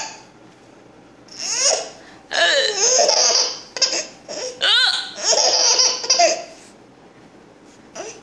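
A baby laughing in several bursts over about five seconds, then going quiet for the last two seconds.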